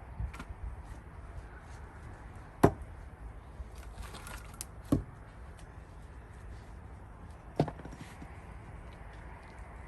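Gränsfors Bruks axe splitting cherry-wood rounds: three sharp chops about two and a half seconds apart, with a few lighter knocks of wood near the start.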